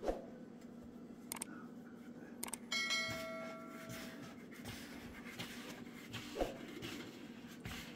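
Hands kneading bannock dough in a plastic bowl: soft handling sounds and a few light knocks over a steady low hum. About three seconds in, a single bell-like ding rings for about a second.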